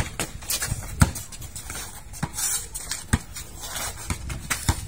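Basketball bouncing on a concrete court as a player dribbles, a handful of separate thuds spaced about a second apart, the loudest about a second in, with shoes scuffing on the court between them.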